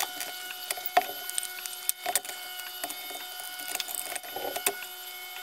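Quick irregular clicks and snaps of plastic parts being handled and pried apart as the snap-on bezel of an FPV video monitor is worked loose, with faint steady tones behind.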